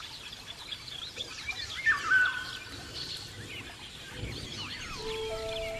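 Many small birds chirping and singing together, with one louder, clearer whistled call about two seconds in. Steady held music notes come in near the end.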